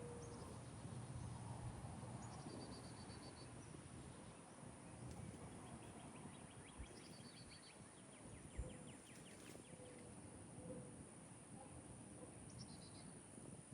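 Faint outdoor ambience with a wild songbird repeating a short song, a quick downward slur into a high even trill, about every few seconds, and a longer run of rapid notes in the middle. A single soft low thump about two-thirds through.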